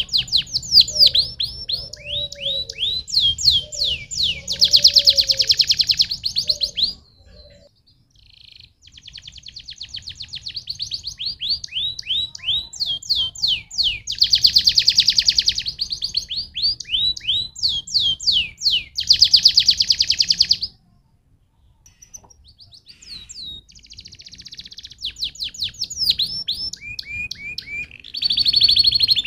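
Domestic canary singing long phrases of rapid, high downward-sweeping notes and fast buzzy trills. The song pauses briefly about seven seconds in and again a little past twenty seconds.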